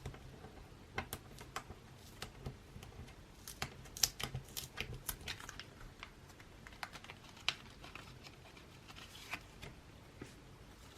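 Photocard packaging being handled and opened: irregular light clicks and plastic crinkling, busiest around four to five seconds in.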